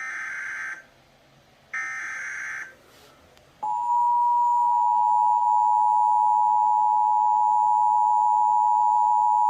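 Emergency Alert System tornado-warning alert. First come two short bursts of buzzy SAME header data tones, about a second apart. Then, about three and a half seconds in, the steady two-note EAS attention tone comes in loud and holds.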